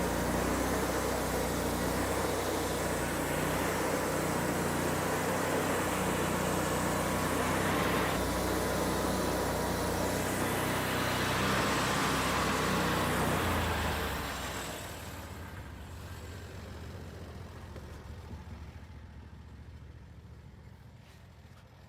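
Range Road RR5032 sawmill's twin-cylinder engine running steadily under load, with a faint wavering high tone over it. About fourteen seconds in it drops off and fades to a low rumble.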